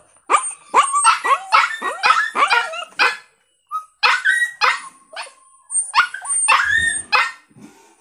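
Dog making a quick run of short barks and yips, each dropping in pitch, with a pause about three seconds in before more bursts of barks.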